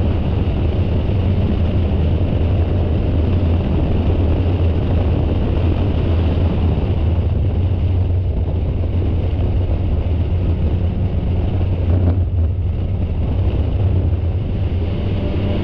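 Spec Miata race car's four-cylinder engine running hard, recorded by an onboard camera, with heavy wind and road noise over a steady low drone. The upper noise drops away briefly about twelve seconds in.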